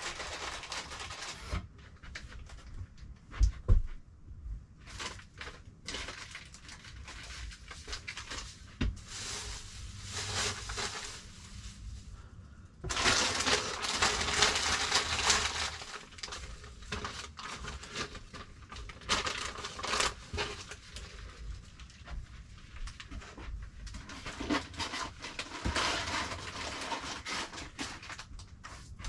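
Household items being handled and moved about while sorting boxes: irregular rustling of cardboard and plastic with scattered knocks. A sharp knock comes about three and a half seconds in, and a louder stretch of rustling about halfway through.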